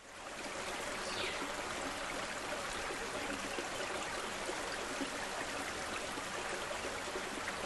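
Steady running water, like a stream or cascade, fading in over the first half-second.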